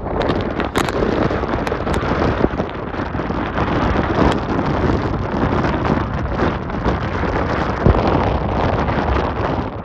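Strong gusting wind buffeting the microphone in a steady heavy rumble, with a few sharp clicks in the first few seconds.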